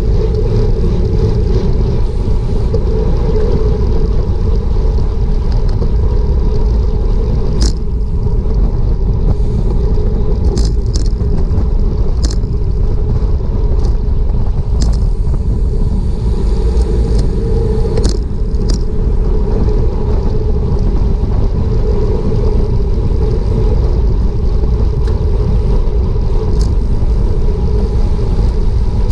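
Heavy wind rumble on a road-bike-mounted action camera at racing speed, with a few sharp clicks scattered through.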